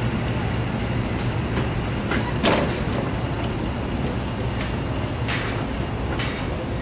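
Class 55 Deltic locomotive's twin Napier Deltic two-stroke diesel engines working under power as the train pulls away, a steady low drone, with a few sharp clicks along the way.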